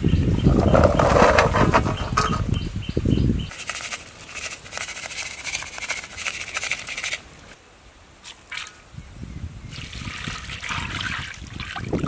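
Ingredients tipped from small bowls onto raw pork in a steel pot, a light pattering hiss, with wind buffeting the microphone for the first few seconds.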